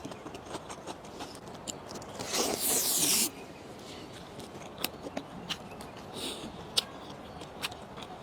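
A person eating: chewing with scattered small mouth clicks, and one louder rasping burst about two seconds in that lasts about a second.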